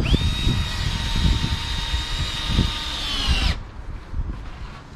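Cordless drill/driver run against the timber roof edge. It comes up to speed at once, holds a steady high whine for about three and a half seconds, then dips slightly in pitch and stops abruptly.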